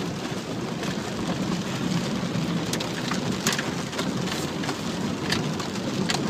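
Rain and muddy floodwater beating and splashing on a car, heard from inside the cabin as a steady rushing noise with scattered sharp taps.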